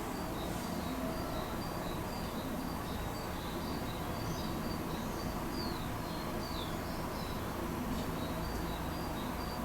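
Birds chirping, short high calls and a few quick falling notes, over a steady low rumble of background noise.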